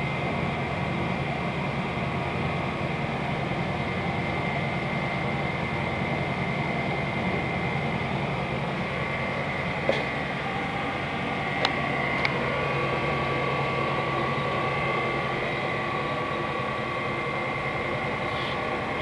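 Steady machinery hum with a low rumble and a faint high whine, broken by a few light clicks around the middle.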